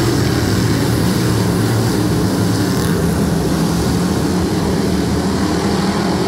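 A pack of dirt-track modified race cars running around the oval: a loud, steady drone of many engines blended together, heard from the grandstand.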